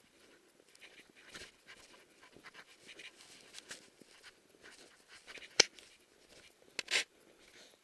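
A dog panting as it walks through a trench in deep snow, with soft crunching steps. A sharp click about two-thirds of the way through, and a short louder scuff about a second later.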